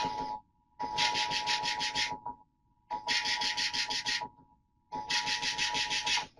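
Emergency Alert System SAME header tones from a weather radio broadcast: harsh, buzzing digital data bursts repeating about every two seconds, with a steady two-note tone under each burst that cuts out in the gaps. They mark the start of a new alert.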